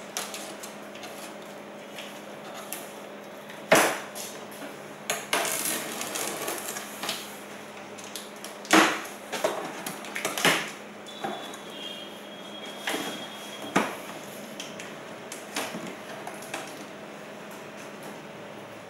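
A large cardboard soundbar box being cut open with a box cutter and handled: scraping and rustling of cardboard and tape, broken by several sharp knocks and clatters, about four of them standing out. A faint steady hum runs underneath.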